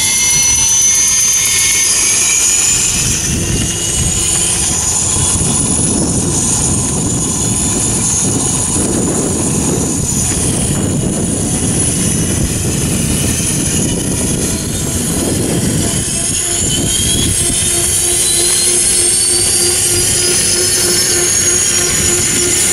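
Radio-controlled model helicopter with a helicopter sound effect running: a high turbine-like whine that rises in pitch over a steady rushing noise. About two-thirds in, a steady pulsing hum joins and the whine climbs again.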